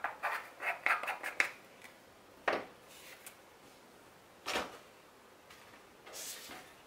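Paper and card being handled on a craft mat: a quick run of rustles and light clicks as the card panel is picked up, then two short brushing strokes and a soft rustle later on.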